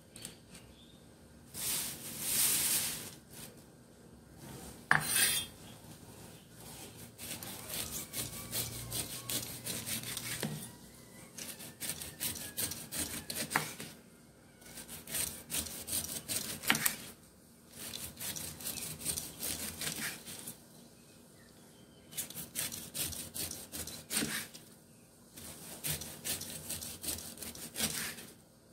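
Large kitchen knife sawing the rind off a whole pineapple on a wooden chopping board. It comes in runs of rasping, crunchy strokes through the tough skin, with short pauses between them and a few sharp knocks of the blade on the board.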